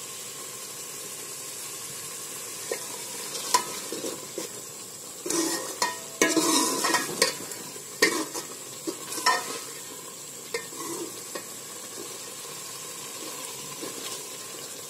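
Steel ladle stirring a thick, simmering gourd curry in a metal pot: scrapes and clinks of the ladle against the pot, bunched between about five and ten seconds in, over a steady bubbling hiss.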